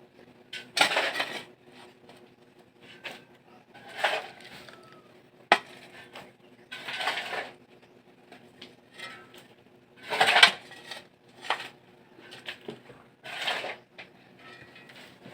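Metal construction tools scraping and clinking against a hard, gritty surface about every three seconds, with a few sharp knocks in between.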